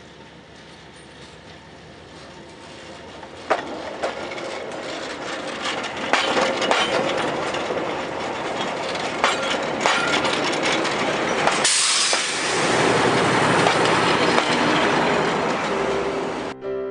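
Narrow-gauge passenger train passing close by, its wheels clicking sharply over the rail joints as the coaches roll past and the sound builds. The last few seconds, when the diesel locomotive goes by, are the loudest, a dense rush that then cuts off suddenly.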